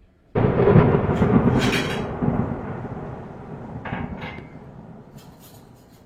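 A sudden blast of snowstorm wind buffeting the microphone, starting abruptly and dying away over about five seconds, with a few faint clicks near the end.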